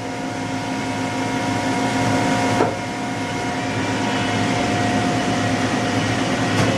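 Samsung SL45 CNC turning center running with a steady hum and whine from its motors and hydraulics while the turret indexes, with one sharp clunk about two and a half seconds in as it changes position and locks.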